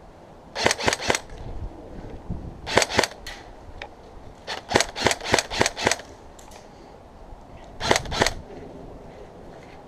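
Airsoft guns firing in four short bursts of rapid sharp shots, with pauses between bursts.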